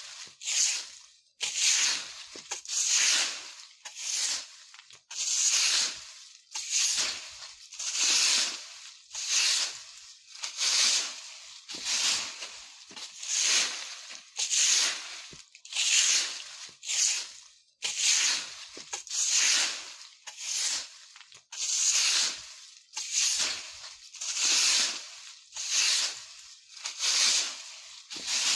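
A broom sweeping dry fallen leaves over the ground in steady, even strokes, about one swish every second and a half, each with a rustle and crunch of leaves.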